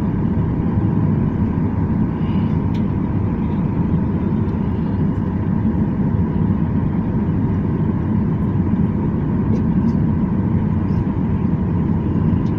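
Steady low rumble of a jet airliner's engines heard from inside the passenger cabin while taxiing, with a faint steady hum over it. The level holds even throughout, without the rising roar of take-off power.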